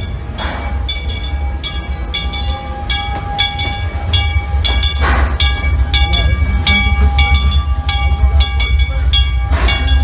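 Steam locomotive rumbling slowly into the station, its bell ringing steadily at about three strikes a second. Three short hisses of steam break in, about half a second in, about five seconds in and near the end.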